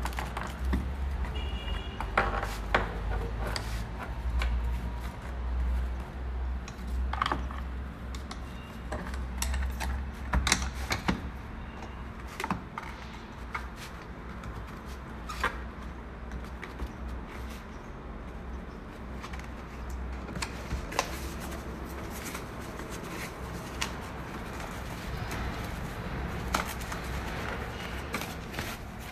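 Plastic and metal trim-removal tools being handled: irregular clicks and knocks, over a low steady rumble.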